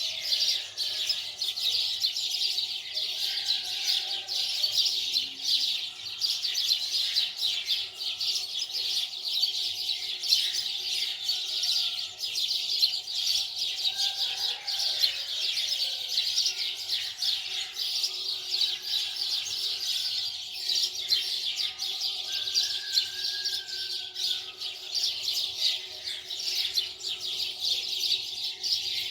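Many small birds chirping continuously in a dense, high-pitched chorus, with fainter lower whistles beneath.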